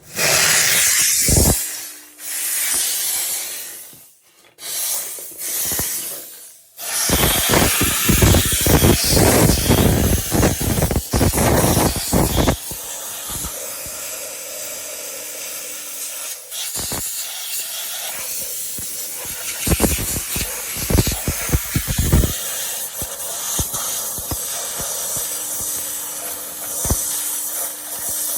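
Dupray steam cleaner jetting steam and hissing: several short bursts at first, then an almost continuous spray with rough, spluttering surges.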